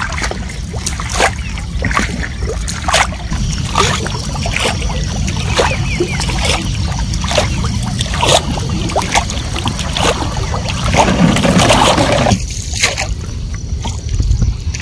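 Small wooden rowboat being rowed: repeated wooden knocks of the oar working in its rope-lashed oarlock, with water sloshing and splashing along the hull, more heavily about eleven seconds in.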